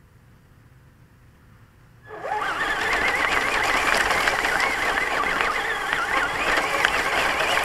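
Traxxas Stampede RC monster truck's electric motor and drivetrain starting up suddenly about two seconds in, then whining up and down with the throttle over a steady rush of gear and tyre noise as the truck drives across grass.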